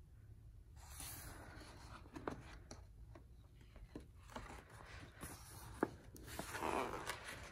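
Paper rustling and light taps as a page of a large hardcover picture book is lifted and turned, with a louder swish of the page near the end.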